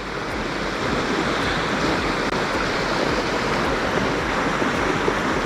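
River water running steadily: an even rushing noise.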